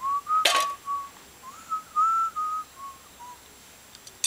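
A person whistling a short tune of about nine notes that step up and down in pitch. A sharp clink comes about half a second in.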